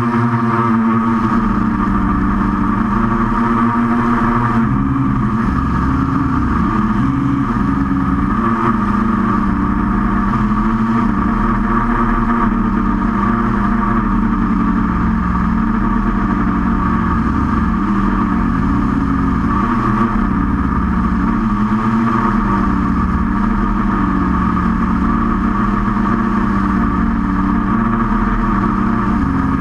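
QAV500 quadcopter's electric motors and propellers running in flight, a steady buzzing drone whose pitch rises and falls as the throttle changes.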